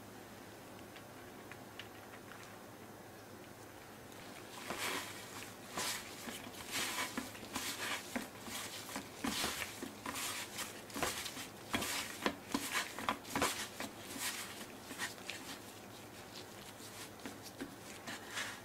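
Gloved hands tossing raw chicken pieces through flour in a stainless steel tray: irregular soft patting and rustling, starting about four and a half seconds in and thinning to lighter pats near the end.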